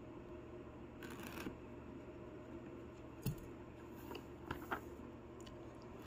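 Scissors and a cardboard tool-set box being handled: a brief rustle, then one sharp knock about three seconds in, followed by a few light clicks.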